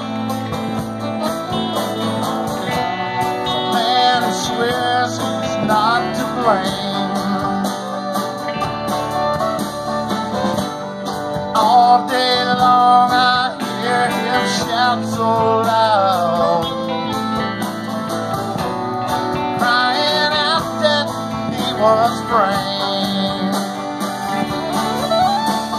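Live country band of fiddle, acoustic and electric guitars and keyboard playing a slow song, with a wavering, sliding melody line over steady strummed chords.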